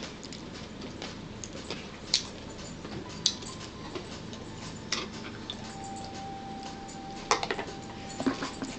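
A metal spoon clicking and scraping against a plastic bowl as food is scooped up: scattered single clicks, then a quick run of clicks near the end.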